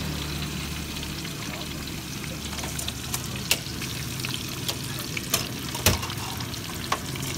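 Okra deep-frying in a wok of hot oil: a steady sizzle. A few sharp clicks come from the wire spider strainer knocking against the wok, the loudest about six seconds in. A low steady hum runs underneath.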